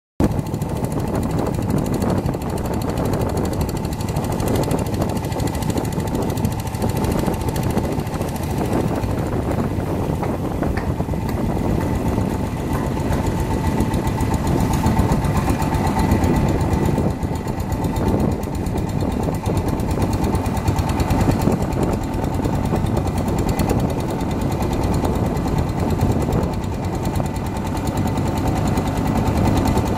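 Long-tail boat's engine running steadily under way, a loud, rapid, even chugging heard from on board.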